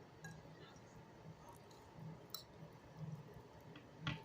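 Quiet eating sounds: faint chewing with a few light clicks, the sharpest near the end.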